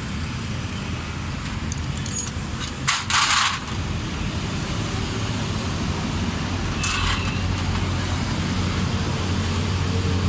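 Two short hisses, a louder one about three seconds in and a fainter one about seven seconds in, over a steady low rumble of road traffic.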